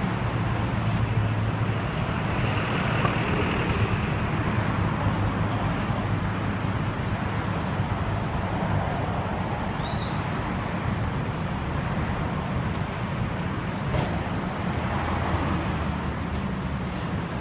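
Road traffic noise with vehicle engines running, a steady low hum under a broad wash of road noise.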